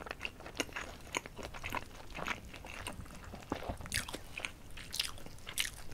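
A person chewing a mouthful of food close to the microphone, with many small irregular mouth clicks and smacks.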